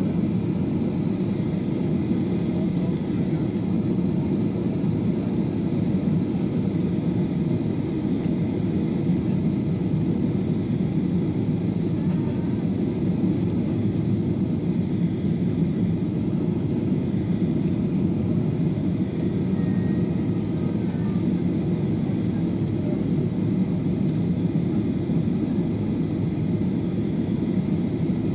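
Steady jet airliner cabin noise from a Boeing 737-700: a constant low rumble of its CFM56-7B turbofan engines and the airflow, heard inside the cabin.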